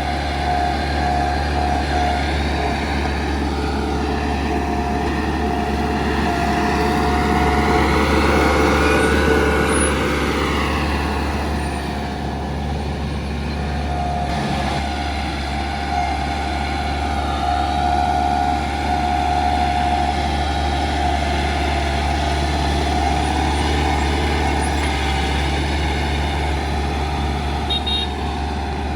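Heavy diesel engine of earthmoving machinery running hard, with a steady high whine over it; it climbs in pitch and loudness about seven seconds in, then falls back a few seconds later and runs on evenly.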